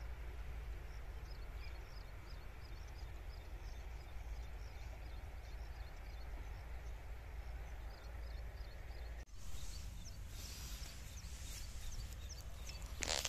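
Open-field ambience: a steady wind rumble on the microphone with a repeated high chirping call, about two chirps a second. About nine seconds in the sound cuts to close rustling and clicks of dry soil and onions being handled by hand.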